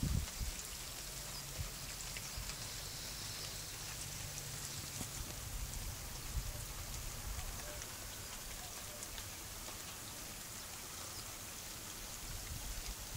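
Heavy rain falling steadily: a dense, even hiss scattered with many small drop ticks, over a low rumble.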